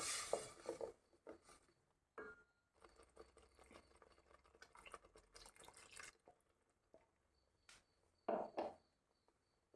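Water being poured into a pan of curry masala, with faint splashing and dripping, and a couple of brief louder splashes or knocks about three-quarters of the way through.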